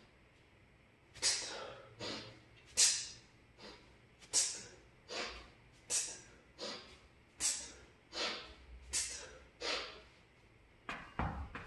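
Forceful hissing breaths of a man swinging a kettlebell, about a dozen of them, one every three quarters of a second, louder and softer in turn, so a sharp exhale with each swing and a softer breath in between. Near the end comes a dull thump.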